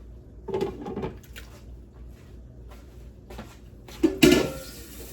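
Kitchen clatter of pots, pans and utensils: a few light knocks, then a louder clatter lasting about a second, near the end.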